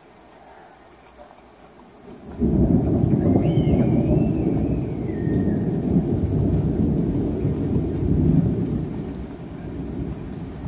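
Steady rain, then a sudden loud thunderclap about two seconds in that rolls on as a long, deep rumble, slowly fading toward the end.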